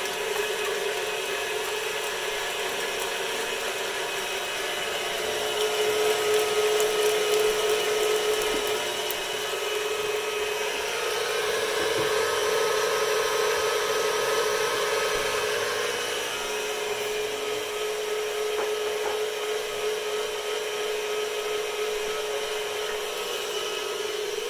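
KitchenAid Ultra Power Plus stand mixer running steadily, its wire whip beating egg whites and sugar in a stainless steel bowl, at the start of whipping them toward soft peaks. It gets louder about five seconds in.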